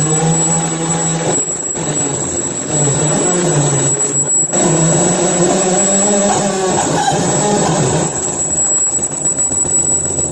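Harsh noise played live on tabletop electronics and effects pedals: a loud, dense wall of distorted noise with shifting low tones and a steady high whine, thinning briefly twice.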